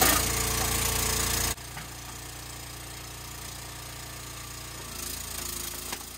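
A motor engine running steadily, loud at first and then dropping suddenly to a quieter, steady idle about one and a half seconds in. A short knock sounds near the end.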